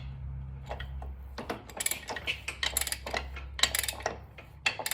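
A string of irregular, sharp metal clicks and taps from hand tools working on a motorcycle gearbox's front sprocket nut and lock washer, starting about a second and a half in, over a low steady hum.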